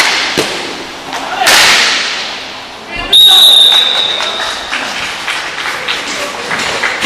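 A loud scraping swish about a second and a half in, then a referee's whistle blown once, a steady shrill blast of about a second, the loudest sound, stopping play around the net.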